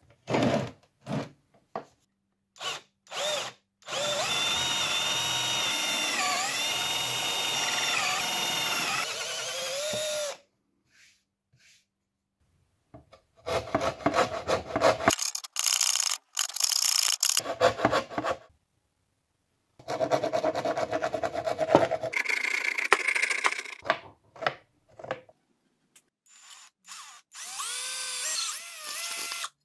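Cordless drill running in several bursts. There are a few short blips, then a long steady run whose pitch dips now and then as the bit bites, then choppier runs, and a last steady run near the end.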